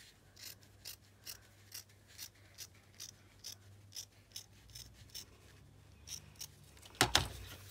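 Scissors snipping through fabric in short, even cuts, about two a second. A single louder thump near the end.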